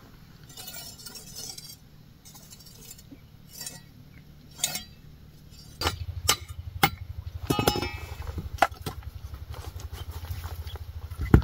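Scattered light clinks and knocks. About halfway through, a small engine starts running with a low, even throb, and a sharp knock comes near the end.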